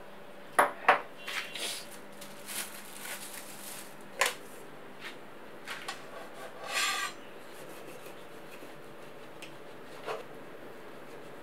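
Kitchen handling sounds: two sharp clinks of glassware set on the countertop, followed by scraping. A knife then cuts through a crusty focaccia on a wooden board with a rasping crunch around the middle, and knocks on the board once or twice.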